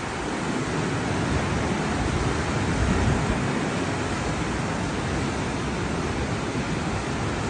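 Pacific Ocean surf washing steadily onto the shore: a continuous rush of breaking waves.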